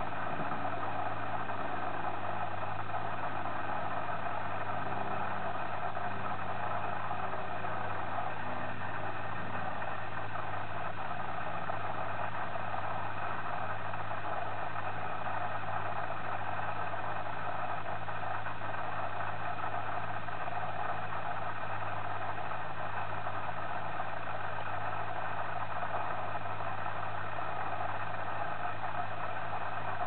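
Steady machine hum with a constant hiss, unchanging throughout, like a motor running.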